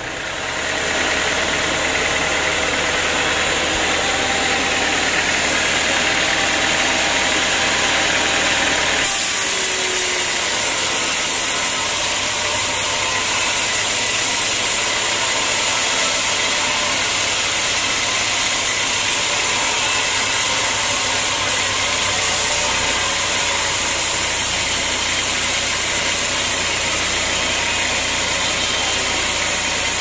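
Band sawmill running, its blade ripping lengthwise through a large, very hard acacia log: a steady, dense machine noise. The sound changes abruptly about nine seconds in.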